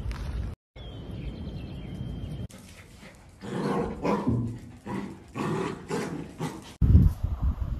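Small puppies barking and growling as they play-fight, in several short bouts. A loud low rumble comes in suddenly near the end.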